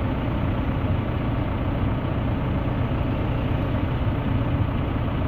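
Backhoe engine idling steadily.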